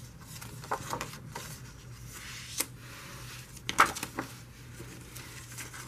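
Sheets of patterned paper being handled and flipped, giving a few brief rustles and flaps, the loudest a little before four seconds in, over a faint steady hum.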